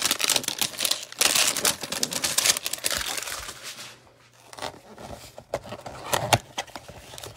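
Gloved hands handling and opening a cardboard trading-card hanger box: a dense crinkling rustle for about four seconds, then quieter, with a few sharp crackles and taps as the box flap is worked open.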